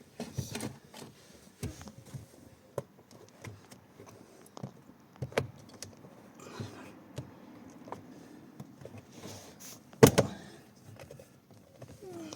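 Scattered clicks and knocks of the plastic cabin-filter cover and trim being worked loose by hand, with one loud knock about ten seconds in.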